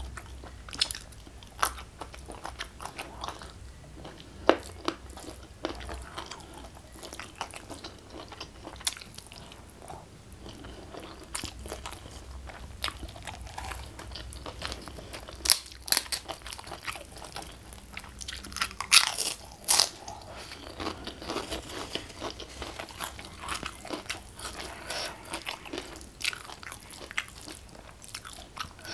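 Close-miked eating sounds: wet chewing of rice and chicken picked up by hand, broken by crisp crunches of a pink kerupuk cracker. The loudest crunches come in a cluster in the middle.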